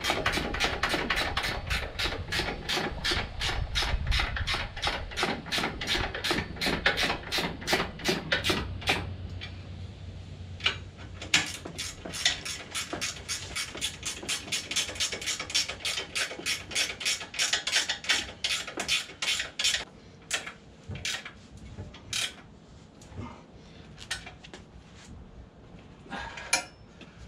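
Hand ratchet clicking rapidly, about six clicks a second, as bolts are tightened. It pauses about nine seconds in, runs again for several seconds, then thins out to a few scattered clicks.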